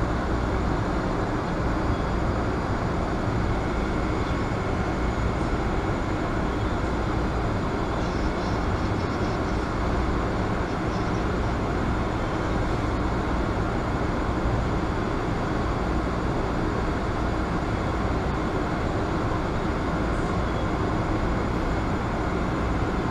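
Steady running noise of an elevated metro train, heard from inside the passenger car: an even, unbroken rumble and hiss of the moving train.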